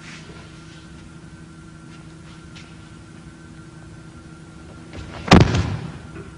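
A single heavy thud about five seconds in, as a thrown partner lands on the tatami mat in a jujutsu throw, over the steady low hum of an old film soundtrack.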